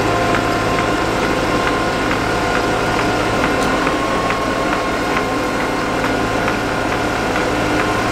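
Ropa Maus 5 sugar beet cleaning loader working at the pickup: the steady running of its engine and drives, with a regular mechanical clicking about two or three times a second.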